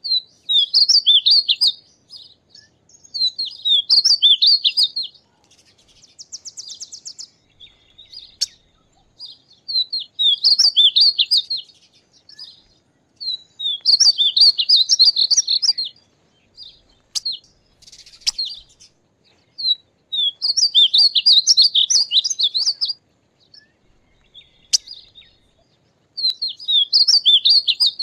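Male painted bunting singing: six high, warbling song phrases of about two seconds each, repeated every few seconds.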